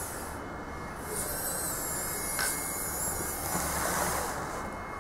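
Electric drive motor and gearbox of a 1/24-scale HBX 2098B mini RC rock crawler whining at a high, wavering pitch under throttle, pausing about half a second in, starting again about a second in, and dying away near the end.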